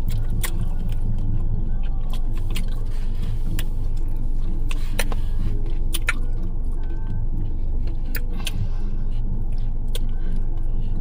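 Steady low hum of a car's engine idling, heard inside the cabin, with scattered short sharp clicks through it.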